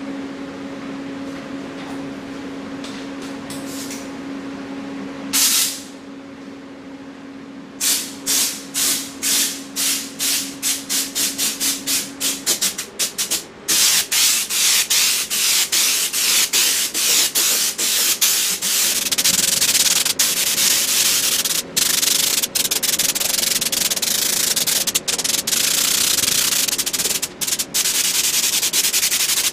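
Raptor liner being sprayed from a schutz-type underbody coating gun on compressed air. After one short blast, the trigger is pulsed in quick hissing spurts that come faster and faster. It is then held for a long, mostly continuous spray with a few brief breaks. A steady low hum runs under the first part and stops about twelve seconds in.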